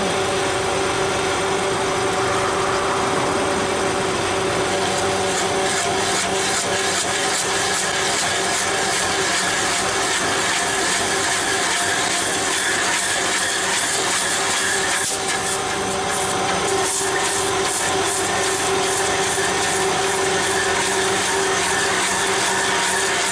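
A heavy machine's engine runs steadily with a constant hum. From about five seconds in, a fast, dense crackle of high clicks joins it.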